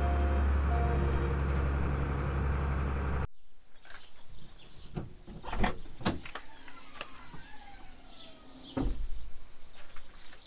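A steady low engine drone for about three seconds, then a sudden cut to a much quieter stretch of scattered clicks and knocks, with a low rumble coming back near the end.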